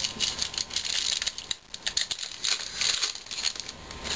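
Foil wrapper of a baseball card pack crinkling and tearing as it is opened by hand: a quick run of crackles with a brief lull about one and a half seconds in.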